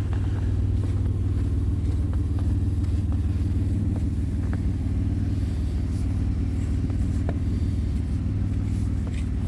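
Car engine running steadily, a low even rumble, with a few faint ticks.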